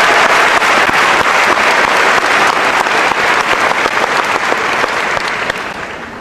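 A large audience applauding, dense clapping that fades away near the end.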